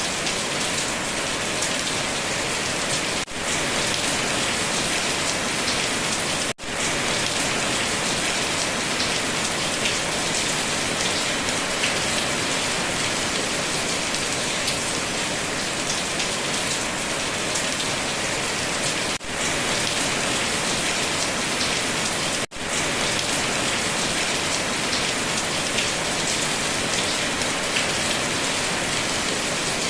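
Steady rain falling on a surface, a dense even hiss of raindrops. The sound dips out very briefly four times.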